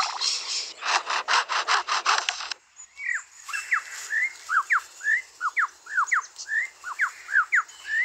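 Superb lyrebird mimicking a camera's motor drive: a rapid run of clicks, about five a second, for the first two and a half seconds. Then it gives a string of short, sharp whistled notes sweeping up and down.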